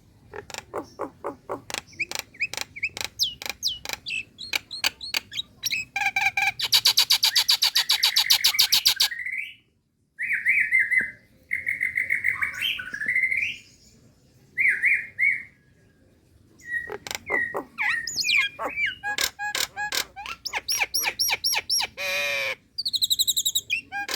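Female Nias hill myna calling: fast runs of sharp clicks, a harsh rasping buzz of about two seconds, and short whistled notes. The clicks come back near the end, with another rasp and a few high notes.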